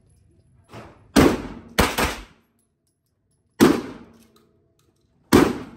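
Gunshots at an indoor shooting range: four loud, irregularly spaced shots, each trailing off in a short echoing tail, with a fainter shot just before the first.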